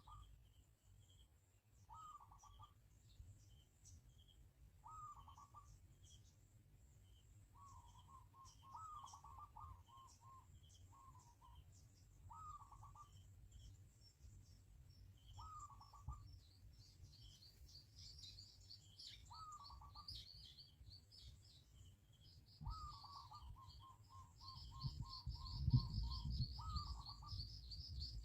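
Wild birds calling: a short descending call repeated every two to three seconds, sometimes running on into a quick string of repeated notes, over faint high chirps. From about halfway, a fast, busy high twittering joins in, and a low rumble swells near the end.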